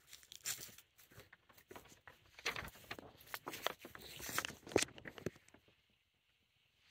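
Footsteps crunching over dry fallen leaves and dead grass, irregular crackles that stop about five and a half seconds in.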